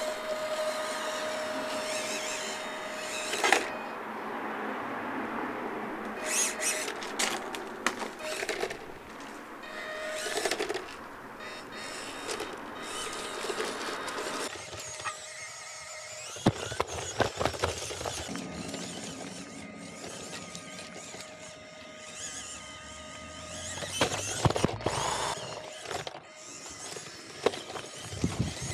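Small electric motor and gearbox of a 4WD RC crawler whining in stop-start stretches as the throttle is worked. Scattered clicks and knocks come from its tyres climbing a wooden plank and crunching over gravel.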